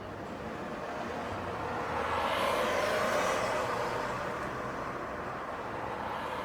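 A vehicle passes on a city street: its tyre and engine noise swells to a peak about three seconds in, then fades back into steady background traffic.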